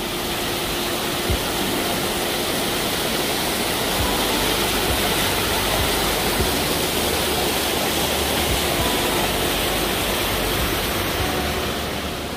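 A steady, loud rushing noise that fades in at the start and fades out near the end, with faint music beneath it.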